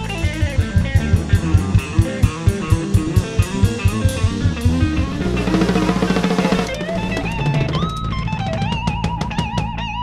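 Live rock band, with drum kit, electric guitar and bass, playing the close of a song: a run of rapid drum hits, then held chords with sustained, wavering electric guitar notes near the end.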